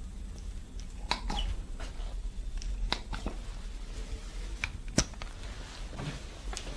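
Scattered light clicks and taps from suction cups being handled and set on the skin during cupping, the sharpest about five seconds in, over a low steady hum.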